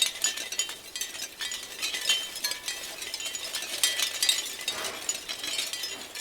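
Shell wind chimes clattering in the breeze: many light, irregular clicks and brief high chinks as the shells knock together.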